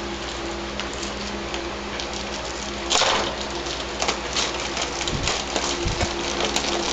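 Plastic Play-Doh cans being handled and opened: scattered small clicks and crackles, with one louder scraping, tearing sound about three seconds in, over a steady hiss and faint hum.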